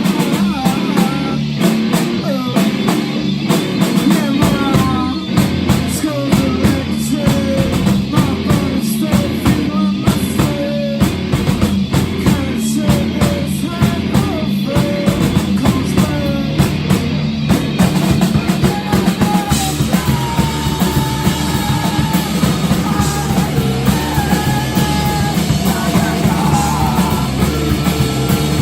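Live punk-rock band playing loud and steady, drum kit and guitar driving along, with singing.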